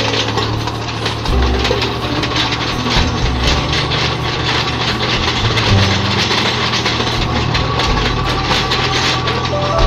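Tractor diesel engine running steadily, with a continuous rough scraping noise over it.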